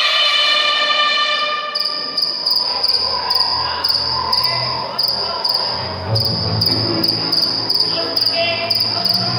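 Music fades out, and about two seconds in a high, rapidly pulsing chirp starts and keeps on, with short breaks, like a cricket sound effect on the show's soundtrack.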